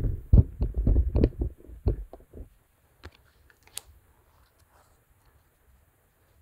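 Handling noise on a hand-held phone's microphone: irregular low thumps and rubbing for about two and a half seconds, then a few light clicks and taps, one sharp, before it settles to quiet.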